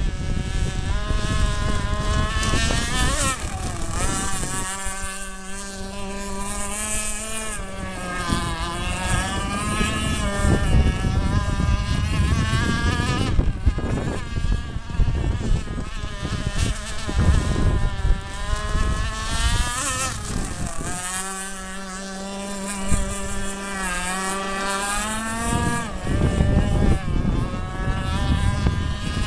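Seaducer Sport 45 radio-controlled hydroplane's 26cc two-stroke gas engine running out on the water: a high buzzing whine whose pitch climbs and falls over and over as the throttle is worked and the boat passes, holding steady for a few seconds twice.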